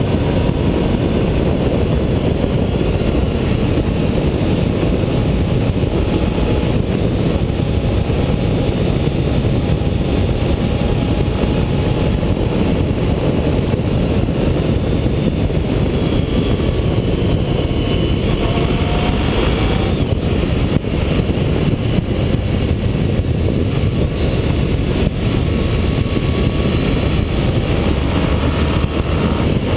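Honda ST1300 motorcycle's V4 engine running at highway cruising speed under a steady rush of wind, its faint whine sliding up and down in pitch as the throttle changes through the curves.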